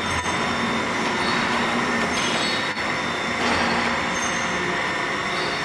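VMC650 vertical machining center milling under program: the spindle and cutter give a steady whine with high squealing tones over a lower machine hum.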